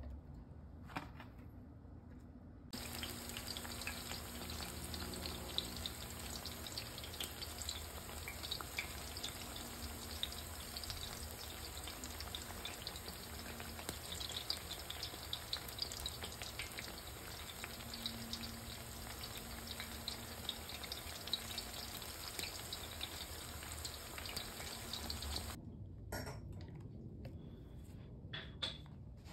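Thin eggplant slices frying in hot canola oil: a steady sizzle with dense crackling that starts abruptly a few seconds in and cuts off near the end. A few light clicks come before and after it.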